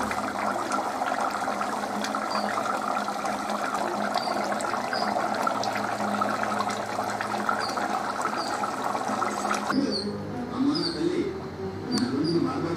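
Mutton curry boiling in an aluminium pot on a stove, a steady bubbling hiss that cuts off suddenly about ten seconds in. Birds chirp now and then in the background.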